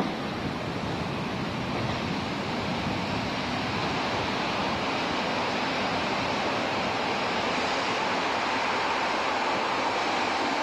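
EF65 electric locomotive hauling a train of blue sleeper coaches approaching on the line, a steady rushing rumble without clear wheel clicks that grows louder toward the end.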